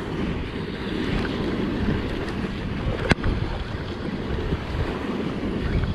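Wind buffeting the microphone over waves washing against the rocks, with one sharp click about three seconds in.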